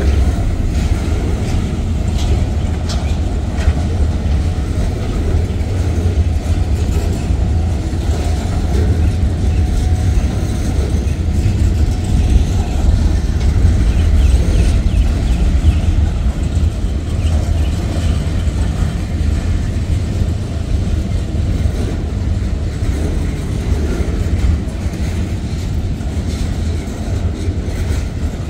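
Freight train cars (steel gondolas and a boxcar) rolling past at close range: a steady low rumble of steel wheels on the rails, with a few sharp clicks.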